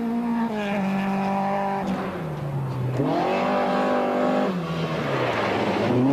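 Rally car engines revving hard on a gravel special stage as two cars pass in turn: high revs held, falling off near two seconds, climbing sharply again about a second later, falling again past four seconds and rising once more near the end, over a hiss of tyres on loose gravel.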